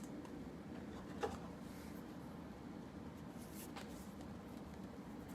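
Trading cards being flipped through by hand: faint sliding of card on card, with a soft tap about a second in.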